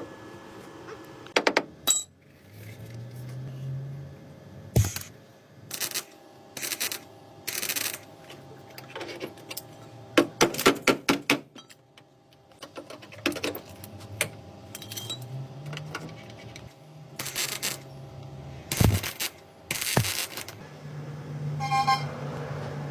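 Metal tools and parts clinking and clattering in a series of sharp knocks, with a quick rattling run about halfway through. A small electric power tool whirs up briefly three times.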